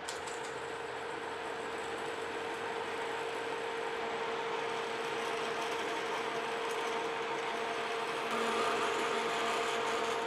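Metal lathe running with a larger twist drill fed from the tailstock into a spinning metal plate, opening up a started hole: a steady tone from the running machine over the noise of the cut, growing slightly louder late on as the drill bites and throws chips.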